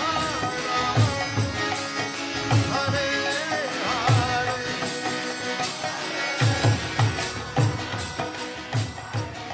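Music with singing over a steady hand-drum beat and jingling percussion, fading out near the end.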